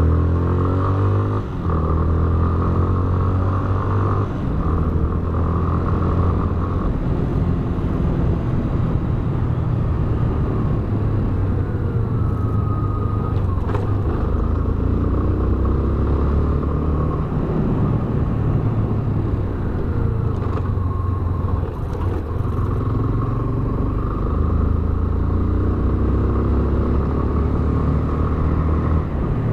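Yamaha Fazer 250 BlueFlex's single-cylinder engine running as the motorcycle is ridden, rising in pitch and dropping back several times as it accelerates.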